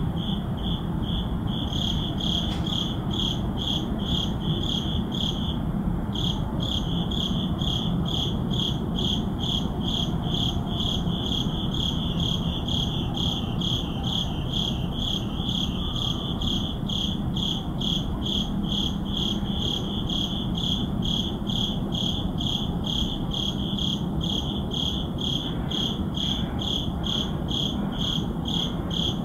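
Crickets chirping in a steady, even rhythm of about two high chirps a second, with a brief pause about five seconds in, over a low steady hum of city background.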